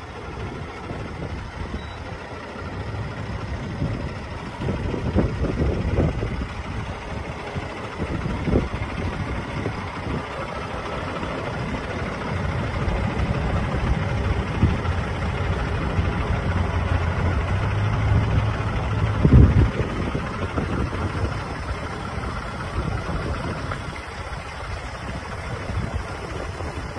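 Cummins ISX15 diesel engine of an International 9900i truck tractor idling steadily. Wind buffets the microphone now and then, hardest about two-thirds of the way in.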